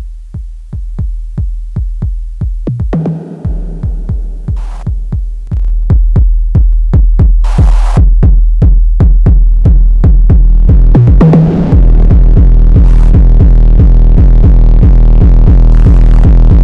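Elektron Digitakt drum-machine beat run through a Game Changer Audio Plasma Rack high-voltage xenon-tube distortion, with a deep kick and clicks at about four hits a second. The sound grows louder and denser about six seconds in, and about twelve seconds in it turns into a thick, saturated fuzz as the unit's knobs are turned.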